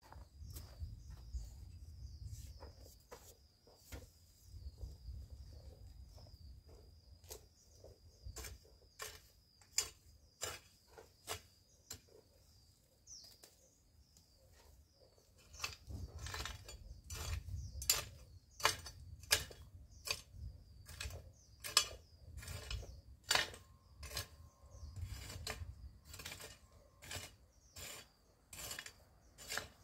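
Irregular sharp clicks and snaps from hands working among garden plants. They come sparsely at first, then more densely and louder from about halfway, at times several a second. A faint steady high tone runs through the first half, and a low rumble comes and goes.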